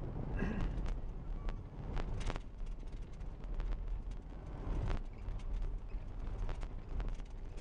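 Car cabin noise while driving: a steady low rumble of engine and tyres, with frequent short knocks and rattles.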